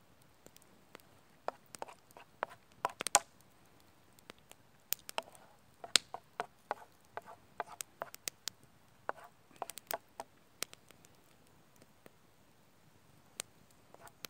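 Small wood campfire crackling under a frying pan, with a wooden spatula knocking and scraping in the pan as food is stirred: sharp, irregular clicks and taps, with short scraping runs about two and six seconds in.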